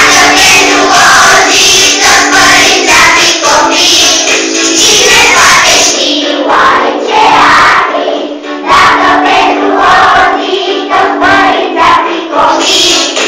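A group of young children singing a song together over recorded backing music, loud throughout.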